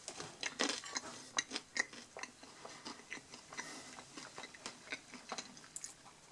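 A person chewing a mouthful of crisp pizza crust: quiet, irregular crunching clicks, a few louder ones in the first couple of seconds.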